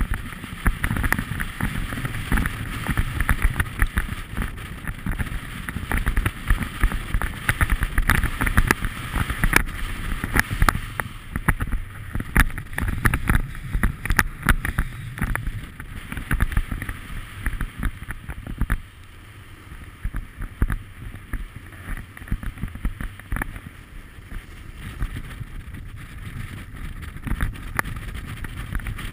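Wind rushing over the microphone while riding downhill, mixed with the scrape and chatter of edges sliding over wind-packed snow. It drops to a quieter hiss about two-thirds of the way through.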